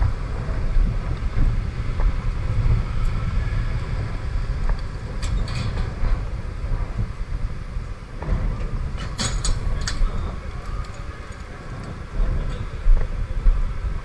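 Motor scooter riding through traffic: a steady low rumble of engine, road and wind noise on the microphone, with a few sharp clicks around the middle.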